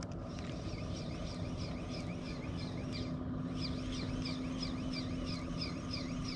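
Okuma Ceymar HD 1000 spinning reel being cranked to retrieve a minnow lure, a rhythmic whirring chirp about three times a second, over a steady low hum.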